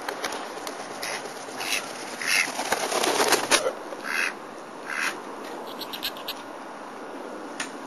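Mallard duck quacking: about six short, rough quacks, the loudest run about three seconds in, over a steady hiss.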